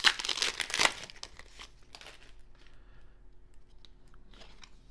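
Plastic-foil trading card pack wrapper crinkling and tearing loudly for about the first second as a pack is torn open. Softer rustles of the wrapper and cards being handled follow, with another brief rustle near the end.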